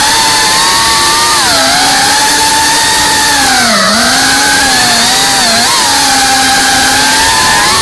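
FPV racing quadcopter's brushless motors and propellers whining, the pitch rising and falling with the throttle as it swoops and turns, with a deep dip about four seconds in.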